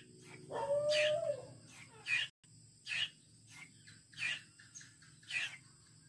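Male Asian koel (burung tuwu) calling: one drawn-out whistled note, then a series of short, sharp high notes about once a second.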